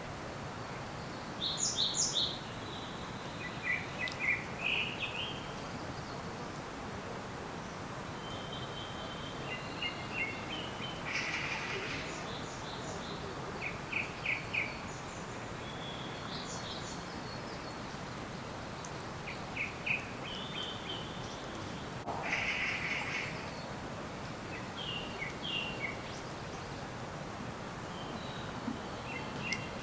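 Songbirds chirping in short, quick phrases of a few notes each, repeated every few seconds, over a steady background hiss of outdoor ambience.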